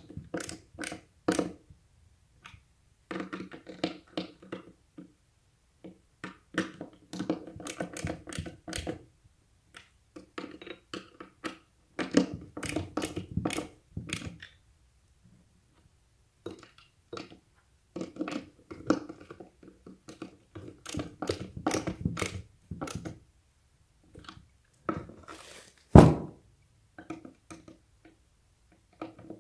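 Skateboard truck hardware being tightened with a ratcheting skate tool: irregular bursts of sharp clicks and metallic knocks as the tool turns and the truck and deck are handled. One louder thunk comes about 26 seconds in.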